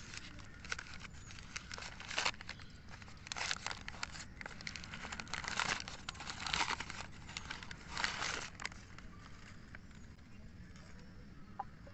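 Newspaper crinkling and rustling in repeated bursts as it is unwrapped from a small clay pot, dying down near the end.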